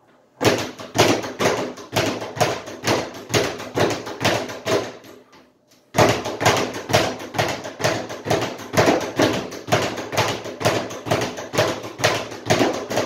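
A leather speed bag being punched, rattling in fast rebounds against its overhead platform in a rhythm the uploader calls sloppy. The run breaks off about five and a half seconds in and starts again half a second later.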